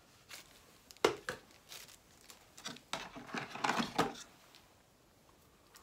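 Hands handling small plastic items and packaging: a sharp click about a second in, then a busier stretch of rustling and clicking that stops a little past the middle.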